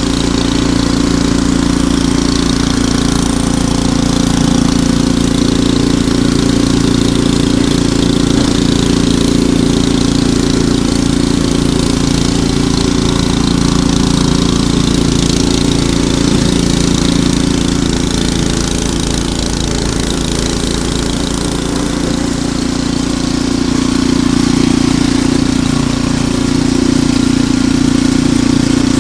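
Ariens Deluxe 28 snowblower's single-cylinder engine running steadily at a constant speed.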